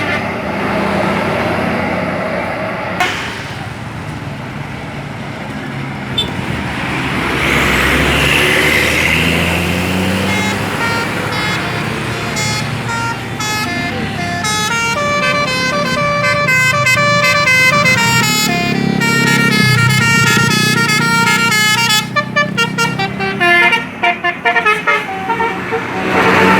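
A bus's multi-trumpet 'telolet basuri' horn playing a tune, its notes changing in steps, with bus engine and traffic noise underneath.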